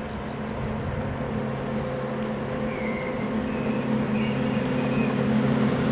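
Colas Rail on-track maintenance machine running slowly toward the listener, its diesel engine humming and growing louder as it nears. A high, steady squeal from the running gear comes in about three seconds in.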